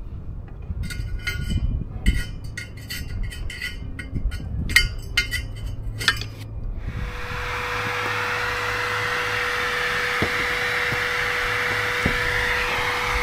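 A long metal tool tapping, clinking and scraping inside a rooftop RV air conditioner's fan housing, chipping out a mud dauber nest lodged on the fan. About seven seconds in, a vacuum cleaner starts and runs with a steady rushing hum.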